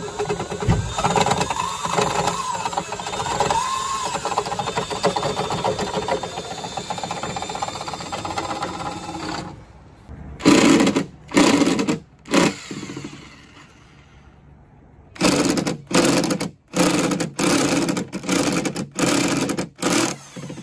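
Power drill running steadily for about nine seconds, drilling into the Jeep's sheet metal. After a short pause, drills are triggered in short bursts: three, then after another pause about eight in quick succession, as they drive fasteners.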